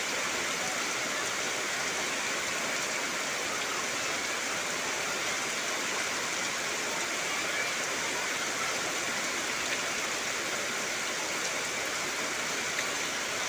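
Heavy rain falling steadily on trees: a dense, even hiss of drops with no let-up.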